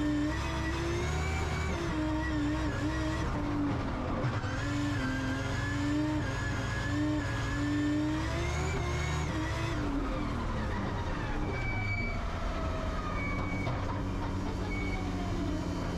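Drift car's engine heard from inside the cabin, running at wavering revs, its pitch falling away about ten seconds in; a few short high beeps near the end.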